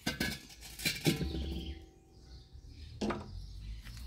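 Steel LPG cooking-gas cylinder being handled and shifted on a tiled floor: three knocks and scrapes spread over the few seconds, one leaving a short metallic ring.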